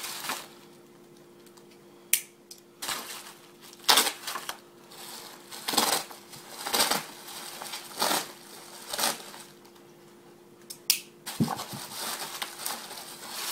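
Plastic bubble wrap being handled and unwrapped, crinkling and rustling in irregular bursts, with a couple of sharp clicks about two seconds in and near the end.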